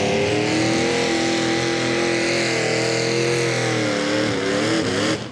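Mini modified pulling tractor's engine at full throttle under load as it drags the weight sled, its pitch wavering up and down. The sound drops away abruptly near the end.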